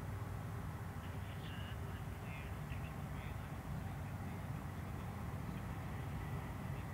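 Steady low rumble of a distant Airbus A330-243's Rolls-Royce Trent 700 engines at low taxi power. A few faint bird calls come between about one and three seconds in.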